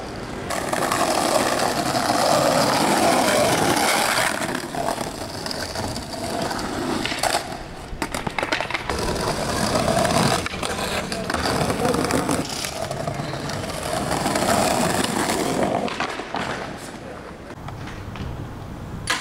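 Skateboard wheels rolling over rough street pavement, with a few sharp knocks of the board hitting the ground.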